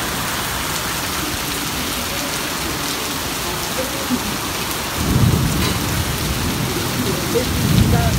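Heavy rain pouring down steadily in a thunderstorm. A deep low rumble swells up about five seconds in and again near the end.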